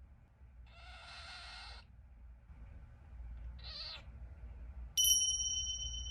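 A cockatiel makes a rough call of about a second, then a short rising chirp. About five seconds in, a bright ding sounds, the loudest thing here, and rings on for about two seconds.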